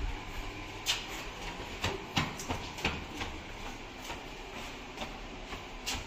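Irregular footsteps and light knocks on a brick-paved tunnel floor, about six sharp taps over a few seconds.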